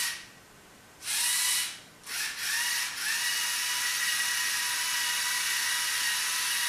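Two Lego EV3 motors driving a many-wheeled Lego Technic vehicle through reduction gears (small gear on the motor, large gear on the wheel), giving a high, steady whine. The motors run briefly about a second in, stop, then start again about two seconds in and keep running evenly.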